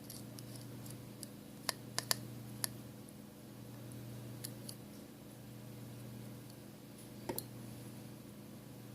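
Light clicks and taps of a small metal shield and tools being fitted inside an iPhone 5s: three within the first three seconds and one more near the end, over a steady low hum.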